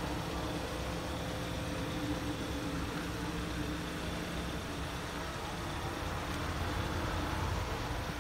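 2014 Hyundai Santa Fe Sport's four-cylinder engine idling steadily.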